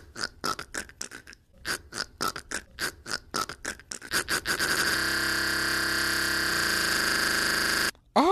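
A man making a rapid sputtering mouth noise, pulses that speed up and run together. Then a pressure washer running with a steady hiss and whine, which cuts off suddenly near the end.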